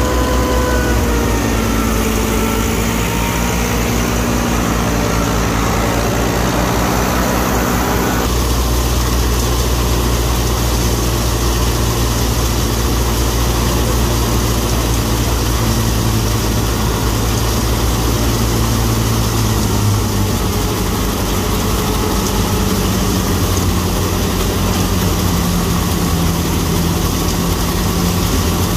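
Massey Ferguson 375 tractor's four-cylinder diesel engine running steadily under load while driving a wheat thresher. About eight seconds in, the sound changes abruptly to the thresher running, a steady noisy drone with the engine still beneath it.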